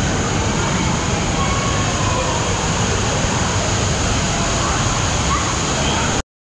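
Water park ambience: a steady rush of running and splashing water with a crowd of voices mixed in, cutting off suddenly near the end.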